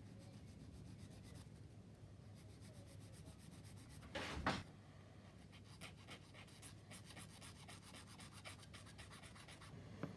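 Small plastic model-kit parts being cleaned up by hand: faint, quick rubbing strokes, with one louder half-second rub about four seconds in.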